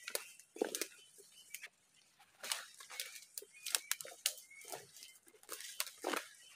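Footsteps and brushing through dense forest undergrowth: irregular crackles and rustles of leaves and twigs.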